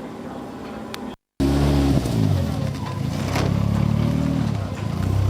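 Race car engine running at a steady drone, then, after a brief dropout about a second in, much louder and accelerating hard, its pitch dipping and climbing again.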